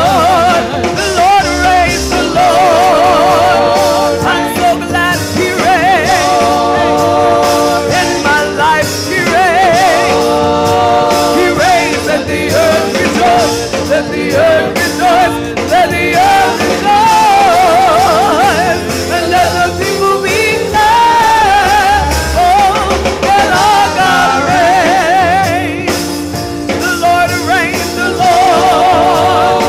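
A woman singing a gospel song with strong vibrato, accompanied by sustained chords and bass on a Roland Juno-DS keyboard.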